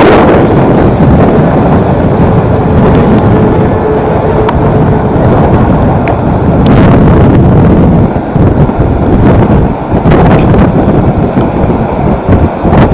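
Wind buffeting the camera microphone: a loud, rumbling rush that eases briefly a couple of times in the second half.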